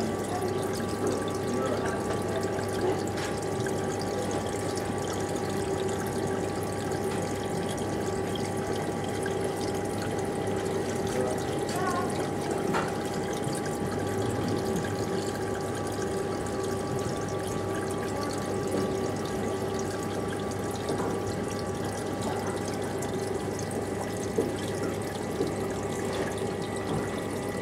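Reef aquarium running: a steady wash of moving water with the even hum of its pumps, several tones held throughout, and an occasional faint click.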